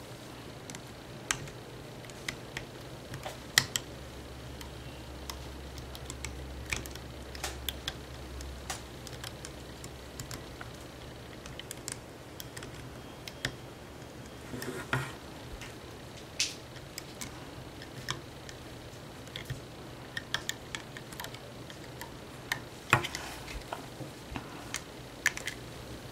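Irregular light clicks and taps of a metal hook against the plastic pegs of a rubber-band bracelet loom as bands are pulled up and looped onto the next peg, over a faint steady hiss.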